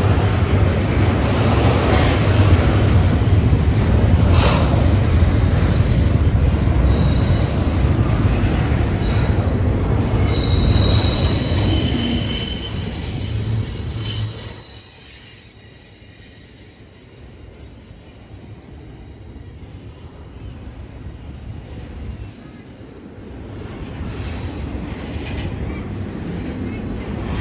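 Intermodal freight train rolling past, a heavy rumble of steel wheels on rail, with a high steady wheel squeal starting a little before the middle and holding for about ten seconds. The rumble drops off about halfway through and builds again near the end.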